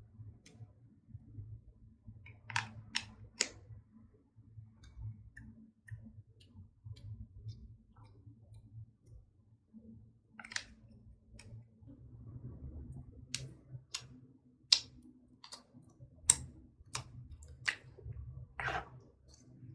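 Slime being squeezed and worked by hand, with soft low handling noise and about a dozen sharp clicking pops: three close together a few seconds in, then a run of them in the last third.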